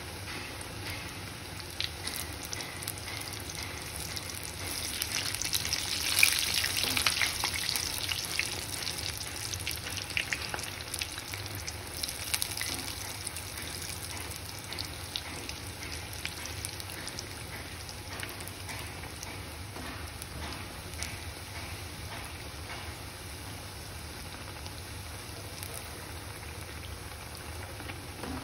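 Layered puris deep-frying in hot oil in a steel kadhai: a steady sizzle with dense crackling, swelling about six seconds in and then easing off.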